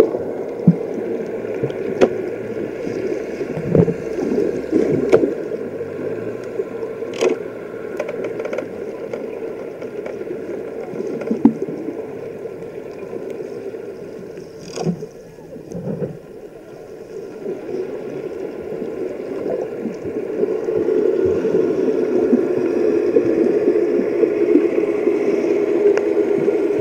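Muffled underwater noise picked up through an action camera's waterproof housing: a steady dull wash of water with scattered sharp clicks and knocks, growing louder about twenty seconds in.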